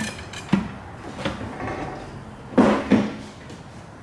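A handful of clunks and knocks as heavy metal drivetrain parts are handled, the loudest pair coming close together in the second half.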